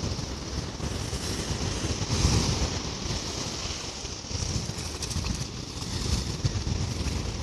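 Wind buffeting the microphone with a low, fluttering rumble over the steady wash of ocean surf breaking.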